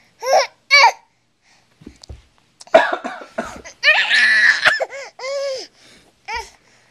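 A baby's short, high-pitched squeals and laughs, broken about three and four seconds in by two harsher coughing bursts.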